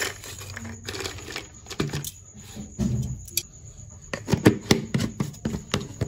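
Crisp fried flour crackers clattering into a plastic jar from metal tongs: a run of sharp clicks and rattles. Near the end, denser clicking as a plastic screw lid goes onto the jar.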